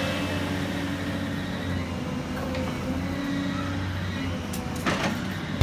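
Demolition machine's engine and hydraulics running steadily while its crusher jaw works concrete, with a couple of sharp knocks about five seconds in.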